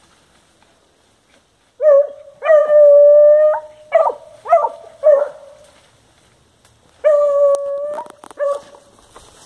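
Hunting dog baying at a cornered paca, starting about two seconds in: a short yelp, a long held howl, three quick yelps, then another long howl and a final yelp.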